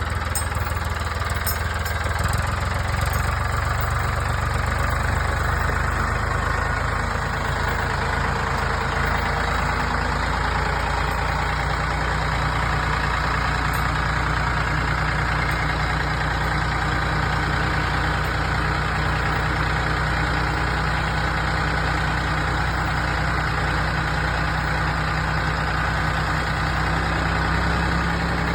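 Skid steer engine running steadily, its low hum shifting slightly in pitch about a third of the way in and again around the middle.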